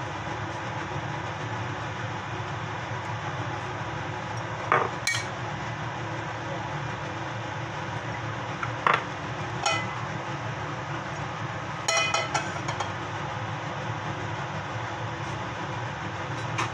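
Cookware being handled on a gas stove while oil is poured into a nonstick pan: several sharp clinks and knocks of a bottle and pan in the middle stretch, over a steady whooshing kitchen background noise.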